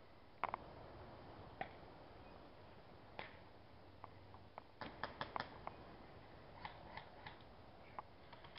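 Faint, scattered sharp clicks and snaps, about a dozen in all, with a quick cluster of them about five seconds in.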